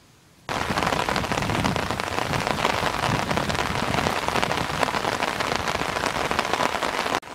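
Rain falling on an umbrella and the ground: a dense, even hiss made up of countless small drop ticks. It starts suddenly about half a second in and cuts off abruptly just before the end.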